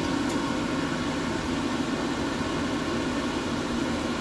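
Steady background hum and hiss with no distinct event, apart from a faint tick shortly after the start.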